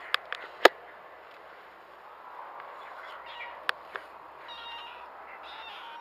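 Black-and-white kitten mewing, short high cries in the second half. A few sharp knocks come in the first second, the loudest a little over half a second in, and two more near the middle.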